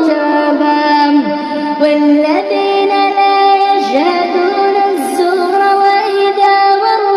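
A girl's voice chanting Quran recitation in a slow, melodic tajweed style, phrases drawn out on long held notes that step and glide between pitches.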